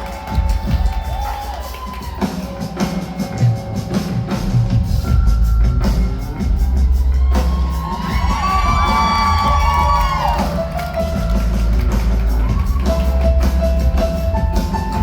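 A live band playing a song's intro: drums, a heavy pulsing bass line and sustained keyboard tones, with some crowd noise from the audience.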